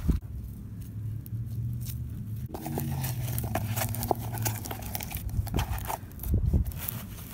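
Slime crackling with scattered small clicks and pops, over a steady low rumble.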